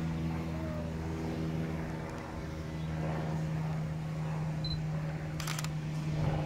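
A steady low mechanical hum at a constant pitch, like a motor or engine running at idle. A brief rustling click comes about five and a half seconds in.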